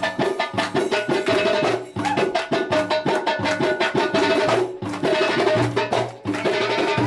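Recorded belly-dance music played over a loudspeaker: a melody over rapid, driving hand-drum rhythms, with brief breaks in the drumming a little before five seconds and again about six seconds in.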